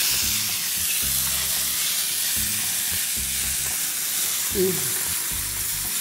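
Shrimp and hogao (tomato-onion sofrito) sizzling in a very hot frying pan as they are sautéed, a steady hiss of frying.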